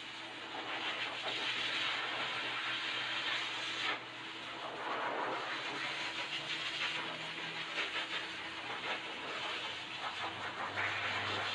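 Steady rushing hiss over a low motor hum, swelling and dipping every few seconds.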